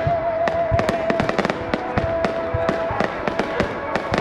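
Aerial fireworks bursting overhead in quick, irregular succession: a dense run of sharp bangs and crackles, several a second. A steady held tone sounds over them for about the first three seconds.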